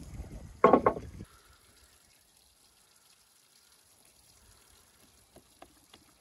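Wet minced meat squelching under a hand as it is pressed and patted onto a cloth. A short, loud double squelch comes about a second in, then a few faint soft pats near the end.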